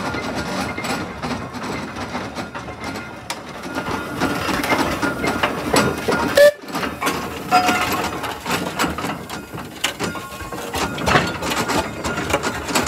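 Steam road roller running and moving, with a continuous mechanical clatter of clanks and rattles from its engine, gearing and chain steering. A sharp knock comes about six and a half seconds in.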